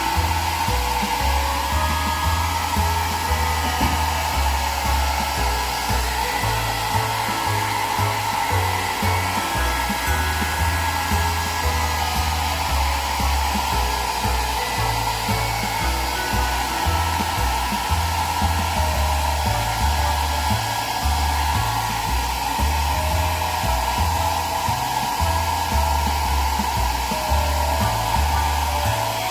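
Hair dryer blowing steadily at a constant pitch, drying a pet's coat after a bath. Background music with a stepped bass line plays underneath.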